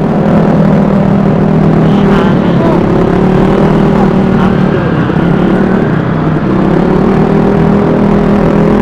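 Vespa S 125 scooter's single-cylinder engine running at a steady cruising speed while being ridden, its pitch dipping briefly a couple of times.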